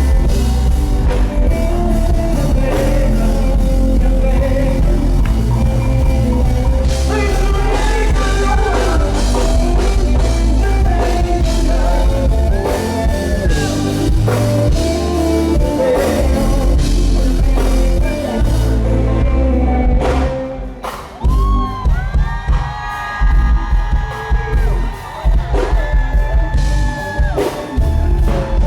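Live reggae band music with a singer over heavy bass and drums. About twenty seconds in, the bass and drums drop away briefly, and long held notes follow.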